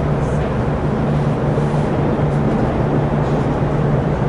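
Steady rumble inside the cabin of a VLocity diesel multiple-unit train running along the track, with a constant low hum over it.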